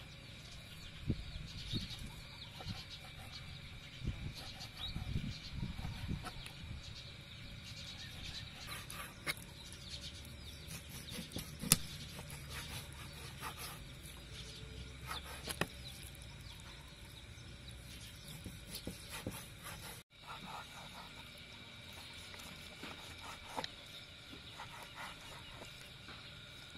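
Kitchen knife slicing raw chicken breast on a wooden cutting board, with scattered taps and knocks of the blade against the board and one louder knock about twelve seconds in. Faint steady high tones run underneath.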